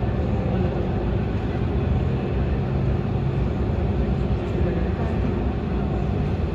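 Steady low rumble of an airliner's engines running on the ground, with faint steady tones in the hum.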